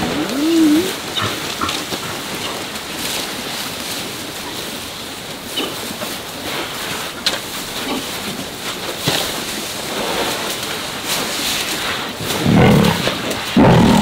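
Lions growling over a warthog kill: a short wavering growl at the start, then louder, harsher growls and snarls near the end as elephants close in.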